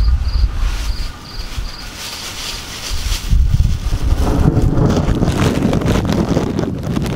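Crickets chirping about three times a second. About three seconds in, wind rushing on the microphone, low and rough, rises over them and covers them.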